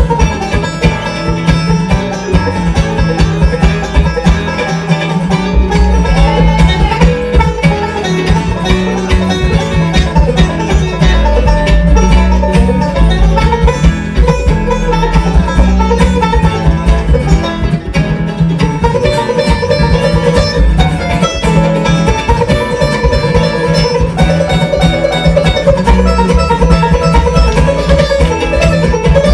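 A five-string resonator banjo plays a rapid picked bluegrass solo over upright bass and acoustic band backing.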